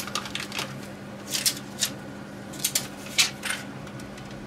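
A handful of short, sharp clicks and rustles as hands handle and peel apart slices of processed burger cheese. A faint steady low hum runs underneath.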